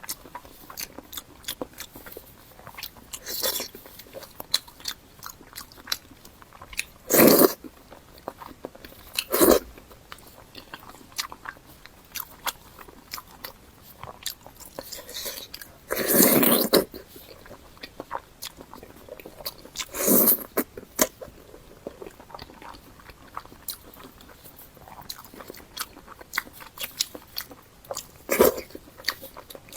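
Close-miked eating: steady wet chewing and small mouth clicks, with about six louder bites or crunches spread through.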